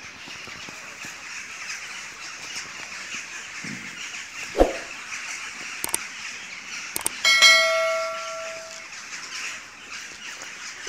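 Subscribe-button sound effect: two sharp mouse clicks, then a bright bell ding that rings out for about a second and a half. A short knock comes a little before the clicks, over a steady background hiss.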